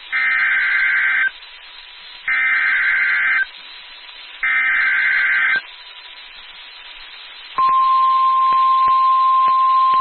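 NOAA Weather Radio Emergency Alert System (SAME) header: three identical one-second bursts of screeching digital data, about two seconds apart. After a pause, the steady single-pitch weather alert tone starts about seven and a half seconds in, signalling that a new warning, here a flash flood warning, is about to be broadcast.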